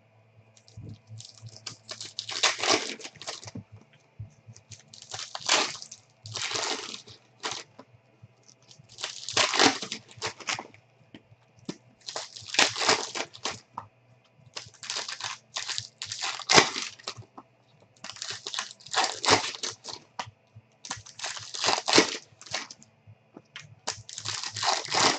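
Foil trading-card pack wrappers being torn open and crinkled by hand, pack after pack: about eight bursts of crackling, one every two to three seconds.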